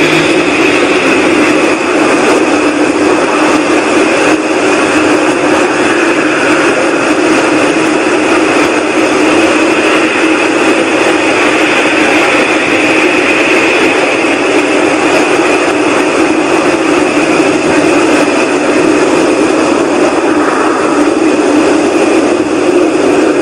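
A loud, steady whooshing drone in the sky, with a low hum and a higher hiss that hold unchanged throughout. It is one of the unexplained 'strange sky sounds', which those recording it insist is not aircraft noise.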